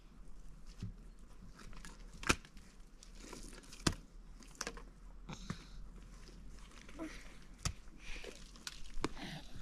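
Irregular sharp knocks and clicks, the loudest about two and four seconds in and again near the end, between short spells of crunching and rustling.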